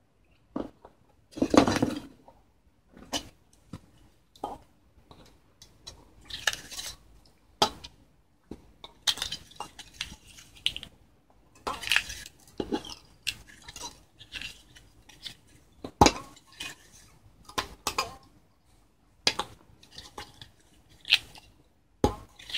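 Irregular clicks, light taps and brief rustles as monofilament fishing line is pulled off a spool and strung back and forth across the metal hooks of a wooden line-tensioning board.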